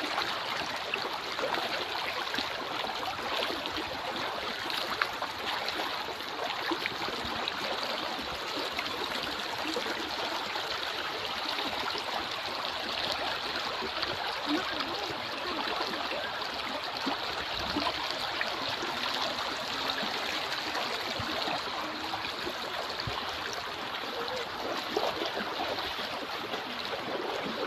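Flowing river water, a steady babbling rush with small gurgles.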